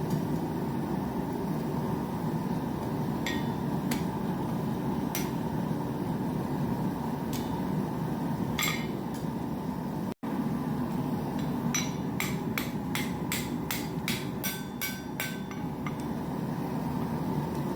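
Blacksmith's hammer striking hot steel on an anvil: a few spaced blows, then a quick run of about ten blows at roughly three a second, some with a brief metallic ring. Underneath runs a steady low rushing noise.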